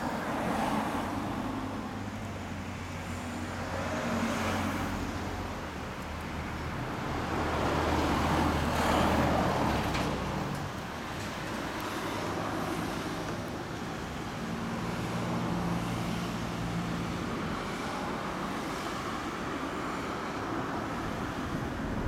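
Road traffic going by on a street: several vehicles pass one after another, each swelling up and fading away, the loudest about eight to ten seconds in.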